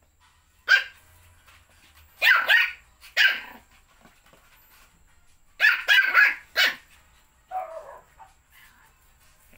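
Japanese Spitz puppy barking in play at a kitten: short, high-pitched yaps, one or two at a time, with a quick cluster of three past the middle and a fainter, lower bark near the end.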